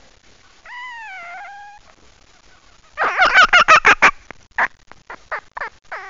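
Red fox calling: one drawn-out call about a second long, then, about three seconds in, a loud, fast run of short calls at roughly six a second. It thins out into a few scattered short calls near the end.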